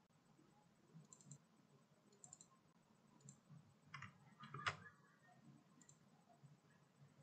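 Faint computer mouse clicks, about one a second, with a quicker flurry of clicks about four seconds in, the loudest near the middle.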